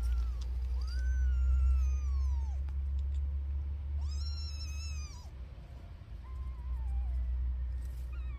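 Newborn kittens mewing: three long, high-pitched mews, each rising then sliding down in pitch, about a second apart, with a steady low rumble underneath.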